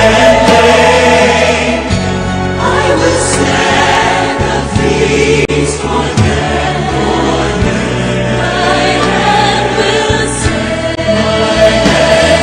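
Christian choral music: a choir singing over instrumental accompaniment, with the bass chords changing every second or two.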